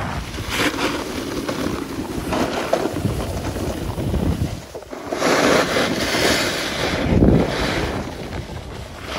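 Wind rushing over the microphone and skis hissing and scraping over groomed snow on a downhill run. The scraping swells with each turn and is loudest about five to six and a half seconds in.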